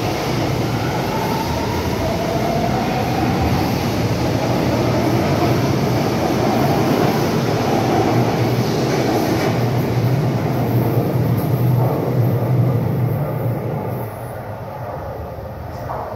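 São Paulo Metro subway train running alongside the platform, a loud rumble with a faint motor whine that glides in pitch during the first few seconds; the noise eases off about fourteen seconds in.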